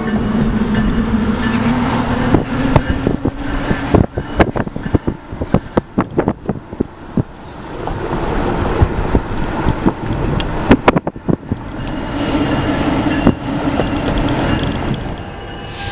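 Freight train running by: a steady low locomotive drone, then a long run of sharp clacks through the middle, then the drone again near the end.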